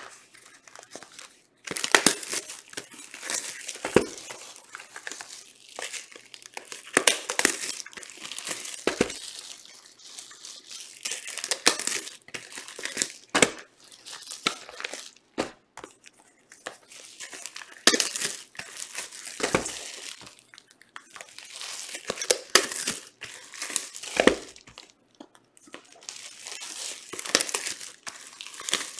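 Plastic wrapping on sealed trading-card boxes crinkling and tearing in irregular bursts as it is ripped open and handled.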